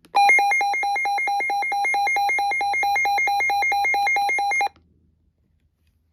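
Midland weather radio sounding its electronic alert alarm: a loud, rapidly pulsing beep tone, about six pulses a second, that cuts off suddenly after about four and a half seconds.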